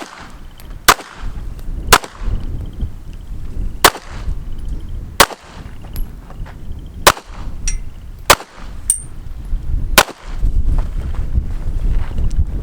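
Pistol shots fired one at a time, about eight sharp cracks spaced one to two seconds apart, as a shooter works through a course of fire.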